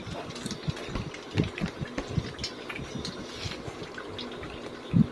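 A pond of young catfish feeding at the surface, with many small irregular splashes and pops as the fish snap floating crickets off the water. One louder thump comes near the end.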